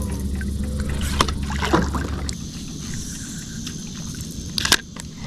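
Knocks and clicks on a fishing kayak while a hooked fish is brought in, with a loud cluster of knocks near the end. A low steady hum stops about two seconds in, and a thin high steady tone runs through the second half.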